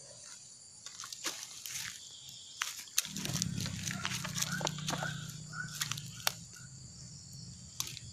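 Steady high insect buzzing, with scattered sharp clicks and rustles of fishing tackle being handled. From about three seconds in, a low steady drone joins for about three seconds and is the loudest sound.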